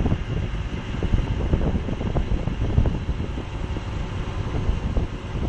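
Helicopter flying away, its rotor and engine heard as a low, fluttering rumble mixed with wind buffeting on the phone's microphone.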